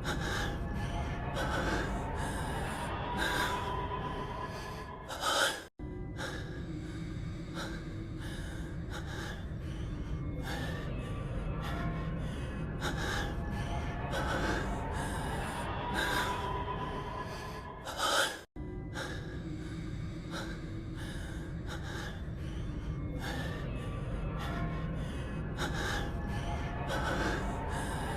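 A man's heavy, gasping breathing: a short voiced clip looped over and over, repeating about every thirteen seconds with a brief cut-out at each join.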